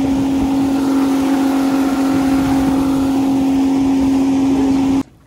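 Watercraft engine running steadily at a constant speed, a loud even hum with a noisy wash over it, cutting off suddenly near the end.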